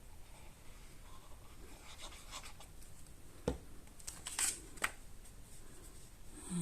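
Cardstock pieces handled on a craft table: faint rustling and scraping of paper, with one sharp tap about three and a half seconds in and two short scratchy rustles soon after.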